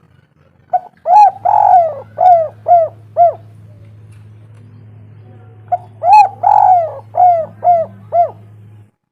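Spotted dove (tekukur) cooing in two song phrases, about a second in and again about six seconds in. Each phrase is a short opening note followed by five coos, the second coo drawn out. A low steady hum runs beneath and cuts off near the end.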